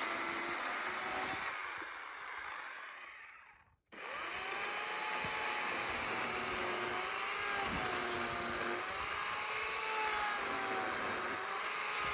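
A motor running steadily, its pitch wavering slowly up and down. It fades away and cuts out about four seconds in, then starts up again.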